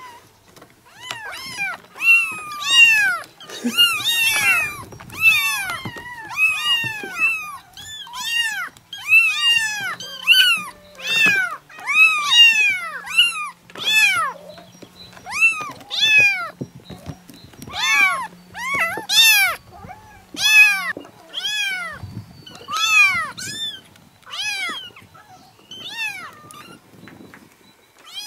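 A litter of young kittens meowing over one another: high, thin calls that rise and fall in pitch, several overlapping, coming one after another with hardly a break.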